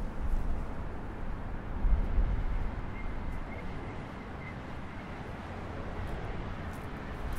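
Gusty wind buffeting the microphone in low rumbling surges, strongest near the start and about two seconds in, over a steady hum of passing road traffic. A few faint high chirps come about three to four seconds in.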